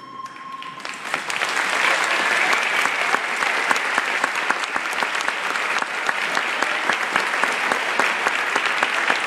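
A crowd applauding: dense, steady clapping that starts up about a second in as the last held note of the music fades out.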